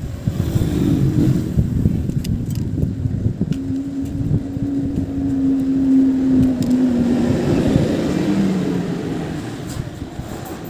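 A motor vehicle's engine running, a steady low hum that drops in pitch about seven seconds in, with a few light clicks.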